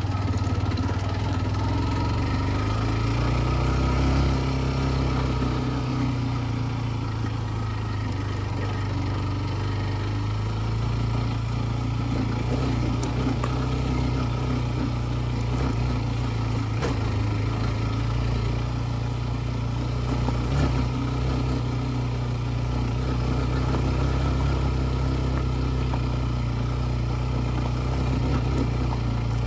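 Single-cylinder engine of a TVS Ntorq 125 scooter running steadily, a low hum that holds an even pitch throughout, over a constant rushing noise.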